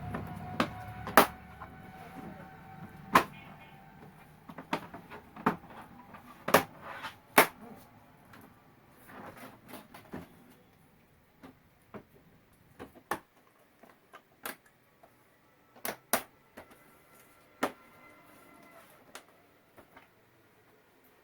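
Irregular hard clicks and knocks of parts being handled while an LED TV panel is fitted back into the set, the loudest in the first half.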